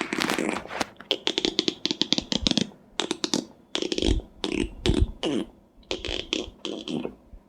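Beatboxer's mouth imitation of bones cracking, made with a curled tongue: short bursts of rapid clicks and pops, repeated about a dozen times with brief gaps.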